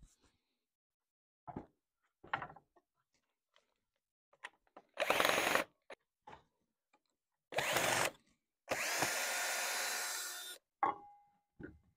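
Cordless drill-driver running in short bursts about five and seven and a half seconds in, then a steadier run of about two seconds, backing the screws out of the stand's wooden legs. Knocks of wood being handled come between the runs, one with a brief ring near the end.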